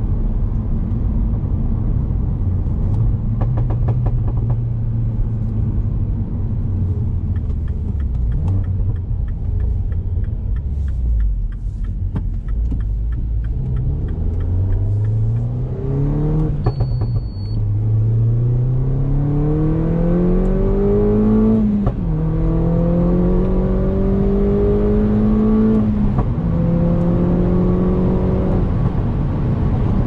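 Stage 2+ tuned R56 Mini John Cooper Works, its N14 1.6-litre turbocharged four-cylinder heard from inside the cabin. It drones low at light throttle, then about halfway through accelerates hard, the revs climbing through three gear changes before easing off near the end.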